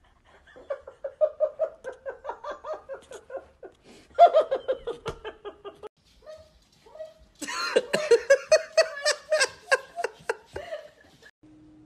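A person laughing hard in three long bouts of rapid, repeated ha-ha pulses.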